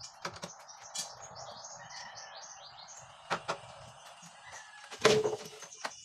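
Sharp clicks and knocks of a screwdriver and door-knob hardware being worked on a PVC door, with a louder clatter of knocks about five seconds in. A bird chirps repeatedly in the background during the first half.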